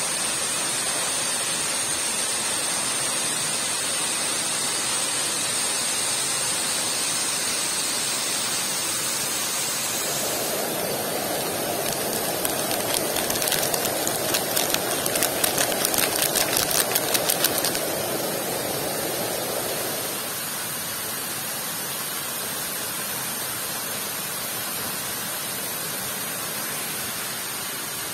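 Heavy rain falling steadily on a small tent, with a waterfall's rush behind it. About midway a fast run of sharp clicks lasts some five seconds, inside a lower rushing sound that lasts about ten seconds and then stops.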